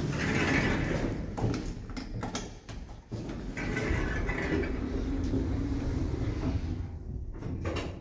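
Passenger lift's automatic sliding car doors closing, the door operator running steadily for a few seconds, after a few clicks and footsteps as a floor button is pressed.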